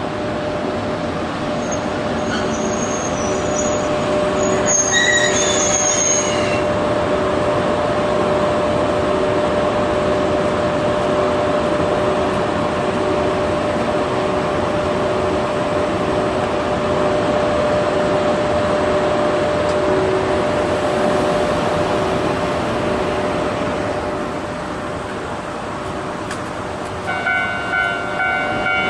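A train hauled by EF81 electric locomotive No. 81 passes over a level crossing, with a loud steady rolling rumble and wheel noise, and a high squeal from the wheels in the first few seconds. The train noise eases about 24 s in, and near the end a pulsing ringing of several steady tones starts.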